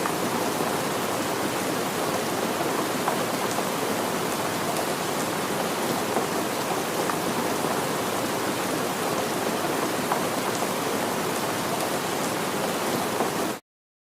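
Steady heavy rain falling and pattering on surfaces, with scattered individual drop ticks; it cuts off suddenly near the end.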